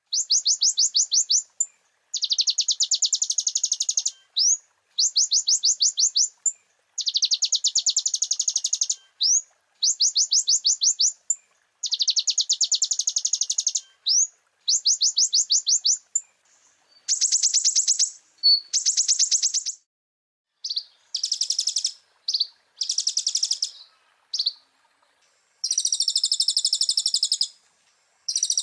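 A kolibri ninja (konin) sunbird singing in bursts of rapid, high repeated notes, each one to two seconds long with short gaps. About halfway in, the phrases change to more varied, higher figures.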